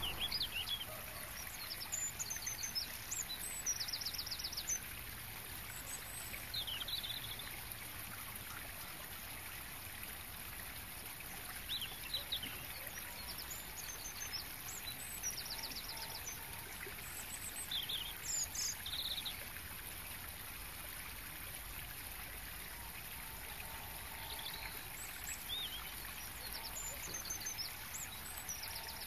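Small birds chirping and singing short high trills every few seconds over a steady hiss.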